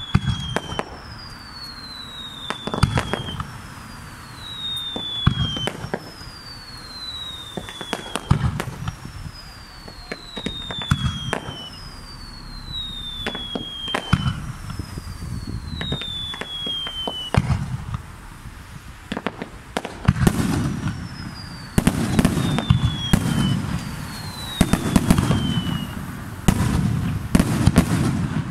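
Fireworks display: a falling whistle about every two and a half seconds, each followed by sharp bangs of bursting shells. From about two-thirds of the way in, the bangs come thicker, with low booms and crackling.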